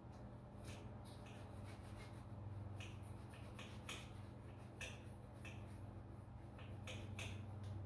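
Scattered light clicks and taps, about one or two a second at irregular intervals, from small metal parts and hand tools being handled during a tractor engine teardown, over a steady low hum.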